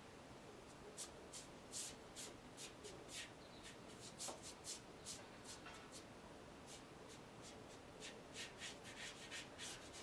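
A dry paintbrush dragged in quick, short strokes across watercolour paper, each a brief faint scratchy swish. The strokes come in a run for the first half, pause for a second or two, then start again near the end.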